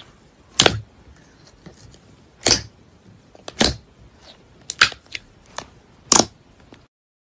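Clear slime being pressed and poked with fingers, giving a series of sharp pops, about seven of them, roughly a second apart, as air pockets in the slime burst.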